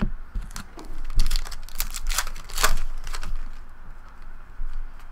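Foil trading-card pack being torn open and its wrapper crinkled by hand, a flurry of crackles thickest between about one and three seconds in.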